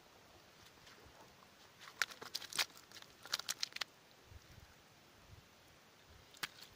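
Short wet slaps and crackles in a cluster from about two to four seconds in, and once more near the end, as a caught fish is gripped and worked out of a nylon cast net on wet mud.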